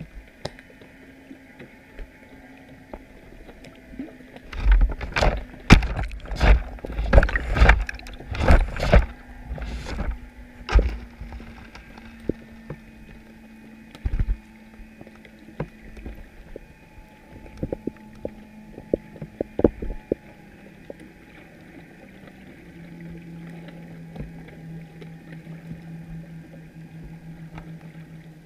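Underwater knocks and thumps on a GoPro housing fixed to a chum pot: a dense run of loud knocks from about four to eleven seconds in, then scattered lighter clicks. Underneath is a faint steady hum that drops lower in pitch about two-thirds of the way through.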